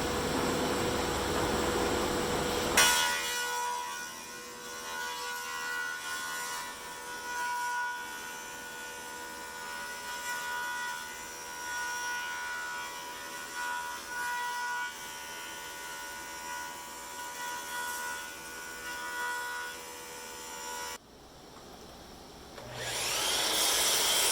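Thickness planer cutting a cedar board, ending with a sharp knock about three seconds in. The planer then runs on more quietly with a steady whine, and near the end a loud cutting noise starts again.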